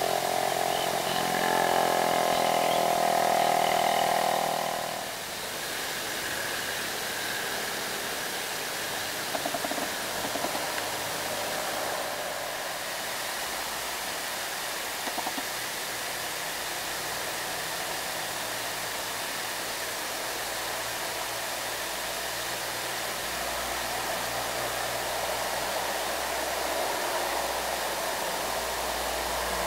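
An engine runs loud with a pitched drone for the first few seconds, then gives way to a steady noise of engines and road. Near the end, the low rumble of a heavily loaded truck's engine builds as it comes past.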